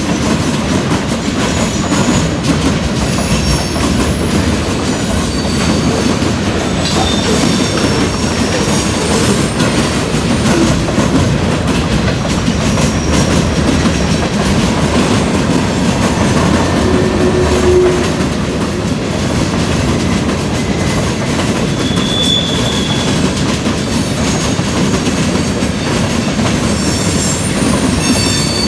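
Freight train cars rolling past close by: a steady rumble of steel wheels on the rails, with short high-pitched wheel squeals now and then.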